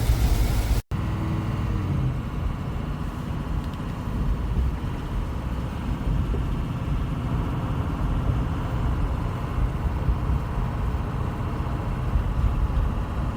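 Steady road noise of a vehicle driving at highway speed, about 60 mph: a low rumble of engine and tyres, briefly cut off about a second in.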